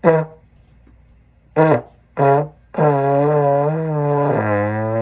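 Trombone being played: a short note that slides down in pitch, two short blown notes, then a long held note that wavers slightly and drops to a lower note near the end.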